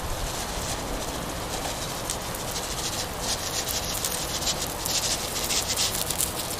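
Steady outdoor background noise with a run of quick rustling and scratching sounds starting about three seconds in.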